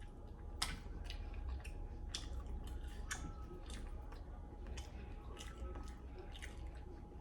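A person chewing and smacking while eating sauce-coated chicken wings: a string of irregular wet clicks and smacks, the sharpest about half a second in, over a low steady hum.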